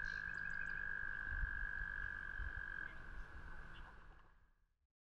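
Frogs trilling in one steady, unbroken high note, with faint scattered chirps above it; the sound fades out about four seconds in.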